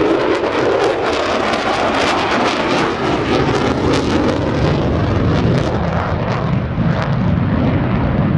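F-14D Tomcat's twin General Electric F110-GE-400 turbofans in full afterburner: a loud, dense jet noise with sharp crackling through the middle as the jet passes. The sound deepens toward the end as it climbs away.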